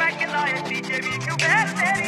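A Haryanvi song with a steady beat and a singing voice, with a low rising note about a second in.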